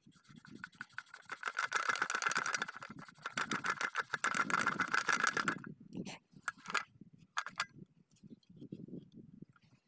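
Rapid scrubbing and scraping on the metal cover of a center pivot irrigation head (the collector ring housing) for about five seconds, then a few separate short scrapes.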